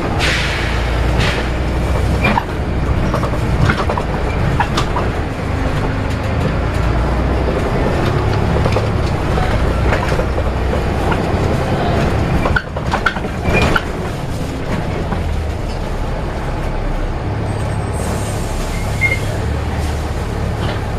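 Volvo B7RLE single-deck diesel bus on the move, heard from inside: a steady engine and road rumble with rattles and knocks from the body and fittings. A cluster of louder knocks comes about thirteen seconds in.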